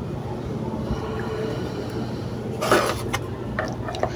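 Hands handling a flux-core wire spool and its metal fittings on a MIG welder's spool holder: a short scraping rustle about two-thirds of the way through and a few light clicks, over a steady low hum.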